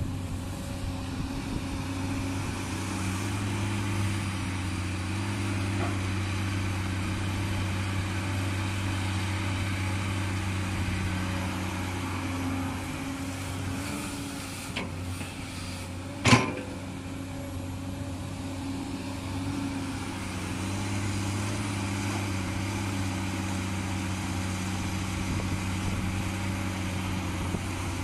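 Komatsu PC200-8 excavator's six-cylinder diesel engine running steadily, a little softer in the middle, with one sharp knock about sixteen seconds in.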